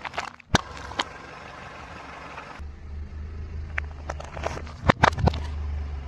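Car engine running low while a tyre crushes objects, giving a series of sharp cracks and pops. The pops cluster and are loudest about five seconds in.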